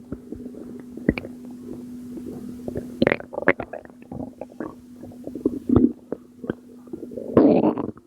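Close-miked belly gurgling: irregular wet pops and gurgles of fluid over a steady low hum, louder in bursts about three seconds in, near six seconds and near the end. The uploader puts them down to postpartum water weight.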